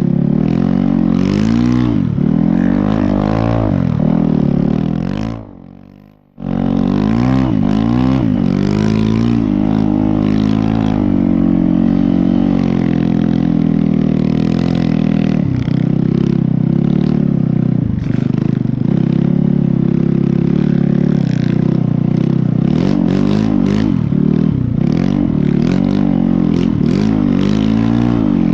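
Snow bike's dirt-bike engine running under load, its pitch rising and falling with the throttle. About five seconds in it dies away, then comes back abruptly about a second later and runs on.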